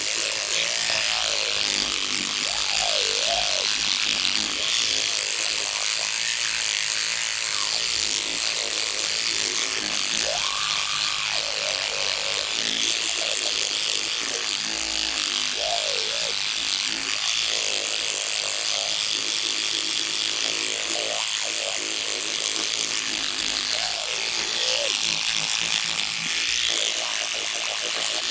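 Electric toothbrush running steadily with its characteristic buzz. Its pitch dips and rises every few seconds.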